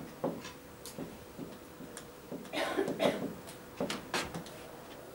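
Dry-erase marker squeaking and tapping on a whiteboard in short strokes while letters are written, the loudest cluster of strokes about two and a half to three seconds in.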